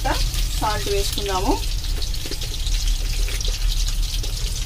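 Peeled boiled quail eggs sizzling in a kadai, a steady frying hiss. A voice sounds briefly in the first second and a half.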